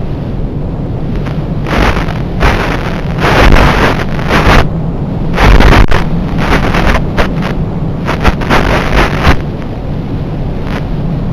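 Wind buffeting the microphone, a loud rumbling noise with gusts that swell and fade.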